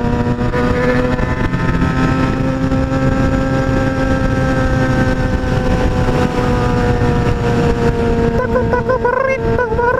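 Motorcycle engine running at a steady cruise under wind rush, its pitch rising slightly and then easing off over several seconds.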